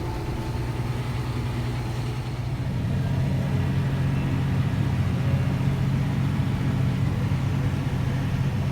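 Farm tractor's diesel engine running steadily while pulling a grain cart. It grows louder about three seconds in.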